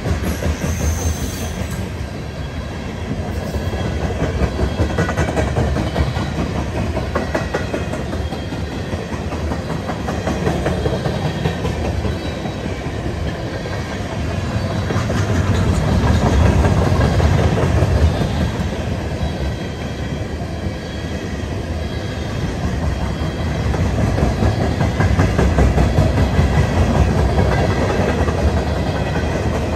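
Freight train tank cars rolling past, steel wheels clicking over the rail joints. The noise rises and falls as the cars go by.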